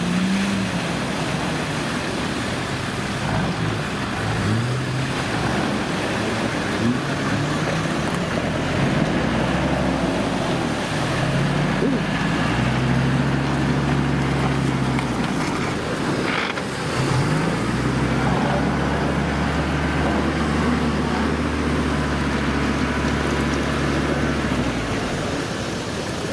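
Modified Nissan 4x4's engine revving up and down in a series of short rising pushes, then held at steady revs for a few seconds twice, over a constant rushing noise.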